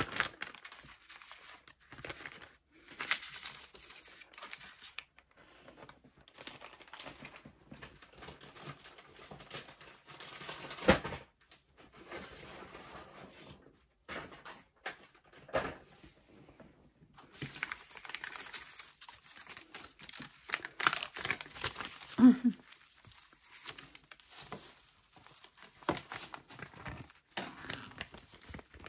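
Clear plastic wrapping and zip-lock bags crinkling in irregular bursts as they are handled, with a few sharp clicks or knocks in between.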